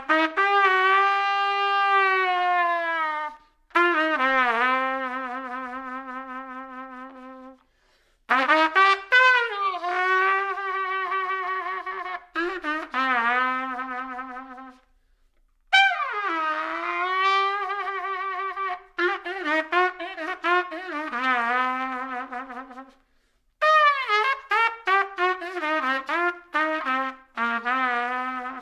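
A solo brass instrument playing a slow melody alone, in phrases of several seconds with short breaks between them and vibrato on the held notes. Near the end it plays quicker, shorter notes.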